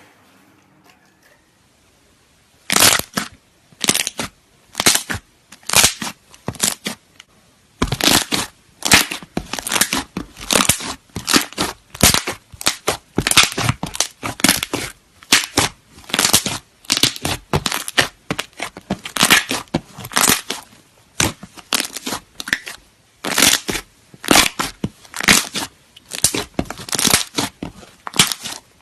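Slime being squeezed and pressed by hand, a crackling, crunching squish with each press, about one to two a second, starting about three seconds in.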